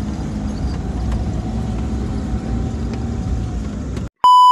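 Engine and road noise of a small van, heard from inside the cab while driving. About four seconds in it cuts out and a loud, steady electronic beep sounds for under a second.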